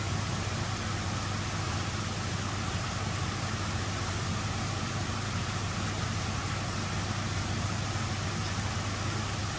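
Steady low hum with an even rush of water: koi pond pumps and filtration running continuously.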